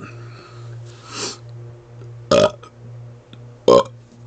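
A man burping on purpose: two short, loud burps about a second and a half apart, with a fainter breathy sound about a second in.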